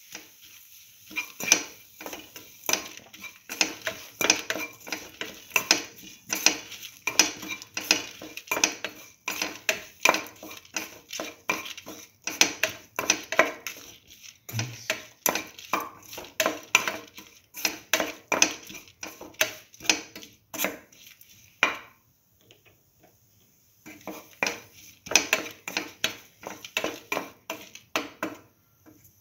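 A metal utensil scraping and clinking against the pan as bottle gourd pieces are stirred and sautéed, about two or three strokes a second, with a pause of a couple of seconds about three-quarters through.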